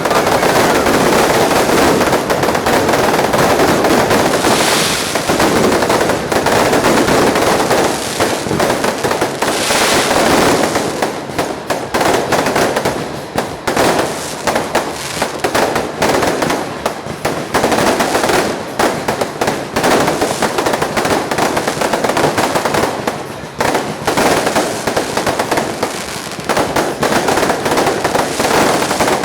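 Fireworks going off in a dense, continuous crackle of rapid bangs, heaviest for about the first ten seconds and more broken after that.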